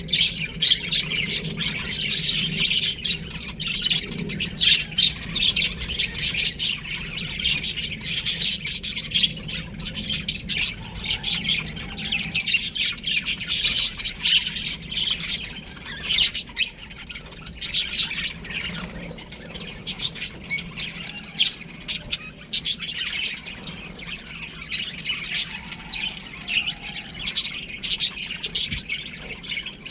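A flock of budgerigars in an aviary chattering, with dense, overlapping chirps and squawks that never stop and rise and fall in loudness.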